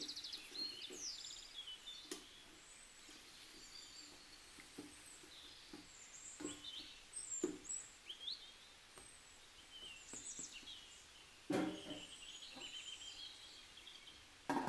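Faint bird chirps in the background, with a few soft knocks of a wooden spatula against the rice cooker's pot as the tomato and onion mixture is stirred, and the lid set on near the end.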